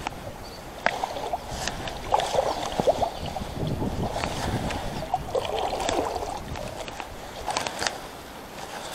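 Kayak paddle strokes: the blades dip and pull through calm water several times, with splashing and dripping and a few light knocks.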